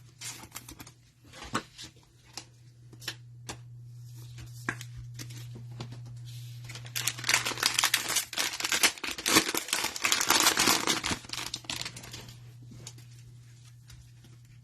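Trading-card pack wrapper being torn open and crinkled by hand. A few scattered clicks and rustles come first, then a dense crackling that is loudest in the middle and fades near the end.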